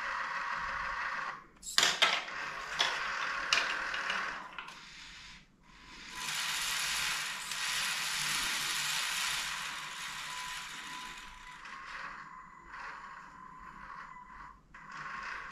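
Small motors and plastic gears of a Lego Technic crane running with a steady whir as it slews and winches its hook. A few sharp clicks come about two to four seconds in.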